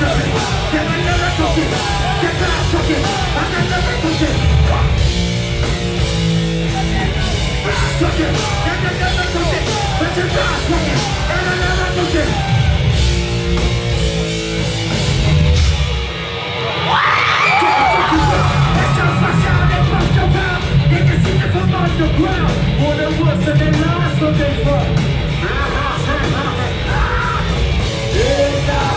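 Live heavy metal band playing at full volume, with distorted electric guitars, pounding drums and yelled vocals. About sixteen seconds in, the low end drops out briefly before the band and voice come back in.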